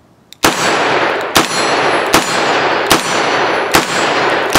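Smith & Wesson Model 327 TRR8 .357 Magnum revolver fired rapidly with full-power Buffalo Bore 180-grain hard-cast loads: six loud shots, the first about half a second in, then one roughly every 0.8 seconds. Each shot echoes on until the next.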